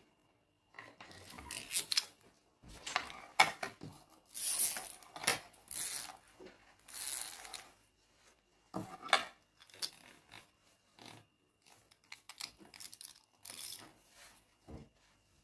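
Irregular scraping, rubbing and clicking as a shower hose is worked by hand: the plastic inner hose slides against the coiled metal sheath, and the end nut and washer are fitted onto it.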